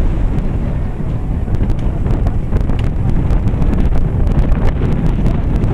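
Wind buffeting the microphone: a steady, heavy low rumble with faint scattered crackles.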